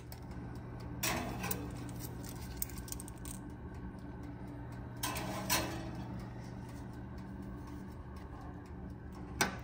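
Steel tapered roller bearings clinking and clattering against a toaster oven's wire rack as they are set in to heat, in two short bursts about a second in and about five seconds in, over a steady low hum.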